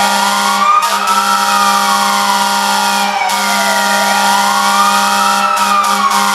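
Hockey arena goal horn sounding continuously: a loud, steady multi-note horn chord with a siren wailing slowly up and down over it, about once every four to five seconds.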